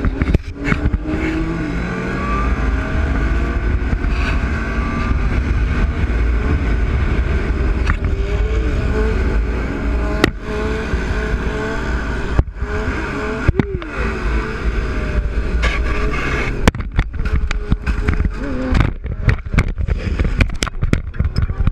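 Stunt motorcycle engines running and revving, the pitch rising and falling, over a dense steady rumble, with a few abrupt breaks.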